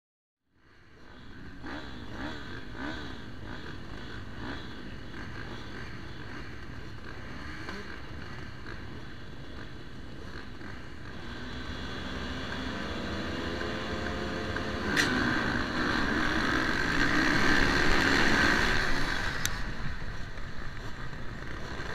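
A field of motocross bikes idling and blipping their throttles on the start line. The revs climb, then a sharp clack comes about two-thirds of the way in and the pack accelerates hard off the start, the engines at their loudest just after.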